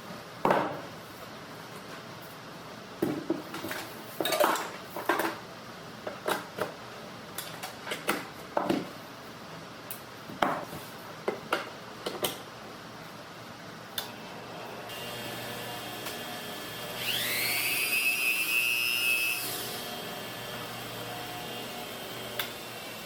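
A series of sharp clicks and knocks of hard parts being handled, then a small electric motor whining for about two and a half seconds, rising in pitch as it spins up and then holding steady.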